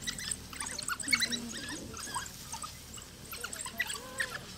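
African wild dogs (painted wolves) giving many rapid, high-pitched twittering chirps and squeaks, the excited calls of a pack crowding around one dog to share food.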